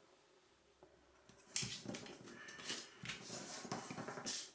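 A 15 cm square of origami paper being folded in half and creased flat by hand: soft rustling and sliding of paper that starts about a second and a half in, after a near-silent start.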